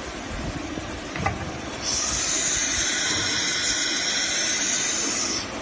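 Compressed air hissing from the automatic tool changer of a disc-type CNC router, the pneumatic spindle blowing air during a tool change. A short click comes about a second in, then a steady hiss of about three and a half seconds that starts and cuts off sharply, over the low hum of the machine.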